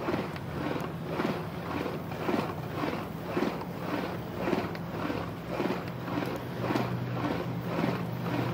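Riding noise from a ride along a bike lane: a steady low hum with a regular beat of pulses a little under twice a second.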